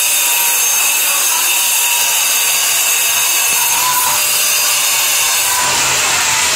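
A power tool running steadily at one speed: a loud, even hiss with a thin high whine.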